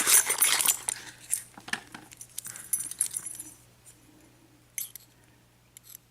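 Rustling and crinkling of packaging mixed with small metal clicks and clinks as a miniature ABUS 7230 padlock and its key are handled. The rustling stops a little past halfway, leaving a few separate clicks.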